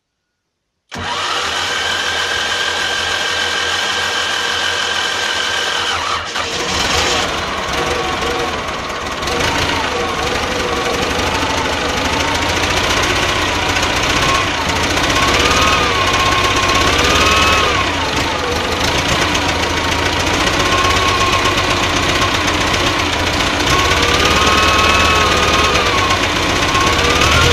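T-40 tractor's D-144 two-cylinder air-cooled diesel running after its rebuild. The sound begins abruptly about a second in with a steady whine, changes near six seconds, and then the engine runs on with a whine that rises and falls as its speed varies.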